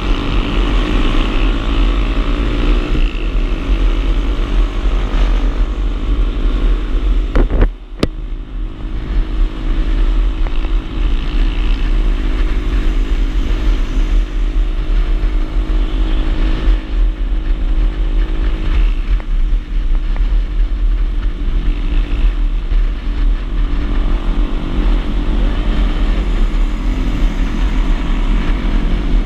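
Small 125 cc motorcycle engine running under way, with wind rumbling on the helmet-mounted microphone. The engine pitch shifts in the first couple of seconds, and about eight seconds in a short click and dip in the sound break the run.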